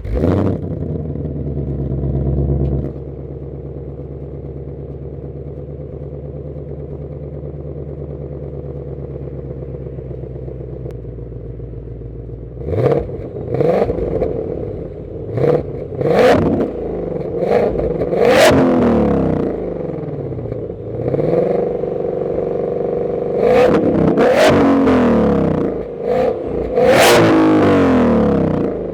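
2021 Ford Mustang Shelby GT500's supercharged 5.2-litre V8 through its stock exhaust, firing up and running at a fast idle that drops to a steady idle about three seconds in. From about halfway on it is blipped in a string of quick free revs, each rising and falling, with a few longer pulls near the end.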